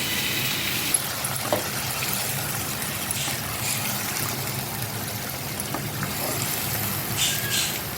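Pressure-cooked goat-head meat with its cooking water being poured into a kadai of fried onion-tomato masala, the liquid splashing and trickling, over a steady low hum. Two short, sharper sounds come near the end.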